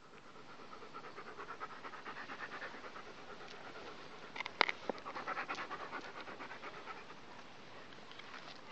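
A dog panting rapidly, a few breaths a second, close to the microphone. A couple of sharp clicks sound about halfway through.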